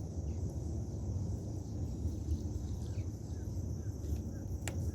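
A steady high insect drone, like crickets, over a low outdoor rumble, with a few faint short chirps and a single sharp click near the end.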